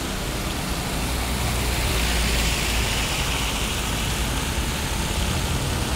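Heavy rain with a truck passing slowly on the wet road: a low engine rumble under a steady hiss of rain and tyres through water. The hiss swells about two to three seconds in as the truck goes by.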